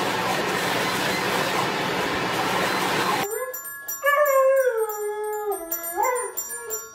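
A leaf blower blowing a steady rush of air for about three seconds. Then a yellow Labrador howls along to a toy xylophone: one long howl that slides down in pitch and rises again near the end, over the xylophone's plinking notes.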